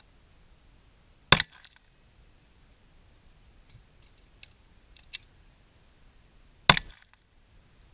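Two single 9mm Glock 19 pistol shots, about five and a half seconds apart, each sharp crack followed by a short echo. A few faint clicks fall between the shots.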